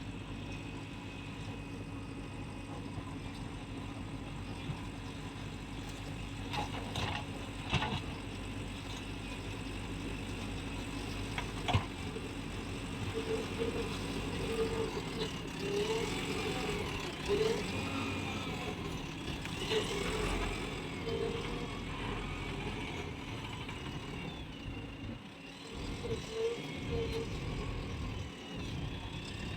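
Diesel engine of heavy construction machinery running steadily, with a few sharp metallic knocks and short, higher-pitched whines coming and going through the middle.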